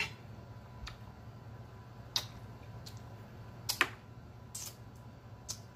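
Close-miked chewing with scattered wet mouth clicks and lip smacks, about half a dozen over a few seconds, the sharpest about two seconds in and a quick pair near four seconds, over a low steady hum.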